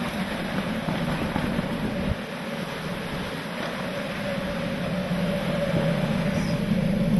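Hurricane-force wind and rain beating on a vehicle, heard from inside the cabin, over a steady low hum from the vehicle.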